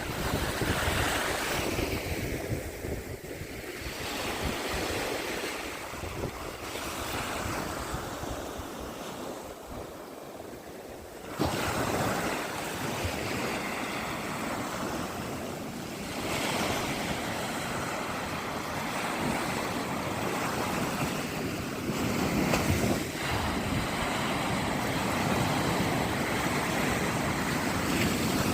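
Black Sea surf washing onto the shore in swells that rise and fall every few seconds, with wind buffeting the microphone. The sound turns suddenly louder about eleven seconds in.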